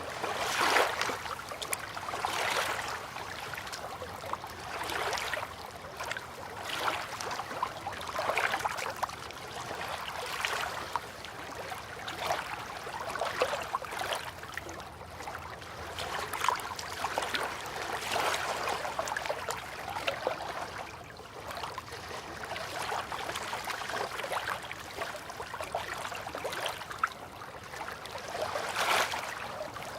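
River water lapping and splashing gently, in small irregular swells every second or two.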